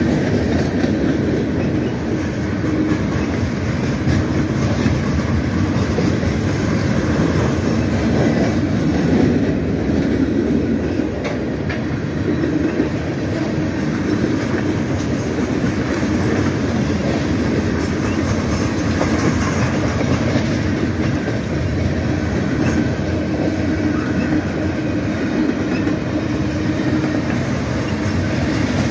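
Freight cars of a long CSX mixed freight train rolling steadily past, wheels clattering over the rail joints above the continuous rumble of the train.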